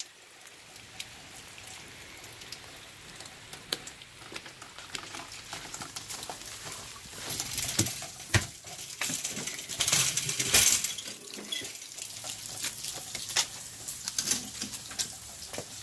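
Rain falling and water splashing and dripping, with scattered taps and knocks; the splashing swells to its loudest about ten seconds in.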